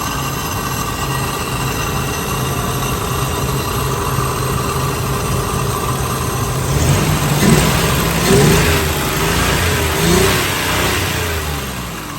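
1995 Toyota 4Runner's 3.0 V6 engine running steadily, then from about seven seconds in pulling harder and louder with its pitch rising and falling, easing off near the end. It is running smoothly on its old distributor in place of a defective one, with at most a little tiny miss left.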